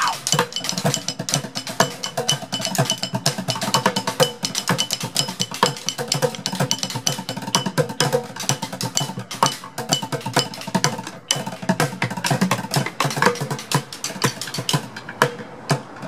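Street drummers beating white plastic buckets and a metal shopping cart with drumsticks, playing a fast, busy groove of dense strikes.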